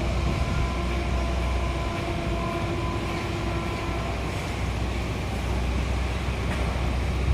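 Steady low vehicle rumble, with a faint held horn note that fades out about four seconds in.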